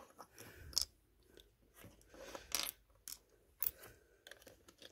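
Small plastic LEGO pieces clicking and rattling as they are handled and put into a tiny LEGO safe: a string of light, irregular clicks and short scrapes.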